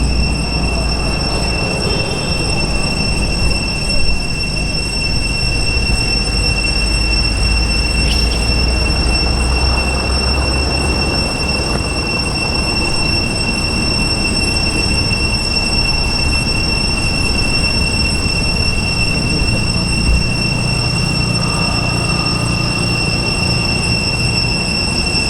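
A steady, high-pitched insect chorus droning without a break, over a rough low rumble.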